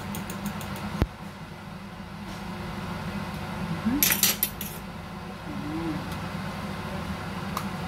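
A utensil clinking against a ceramic bowl of beaten egg: quick clinks at the start, a sharp knock about a second in, another cluster of clinks about four seconds in and one last click near the end. A steady low hum runs underneath.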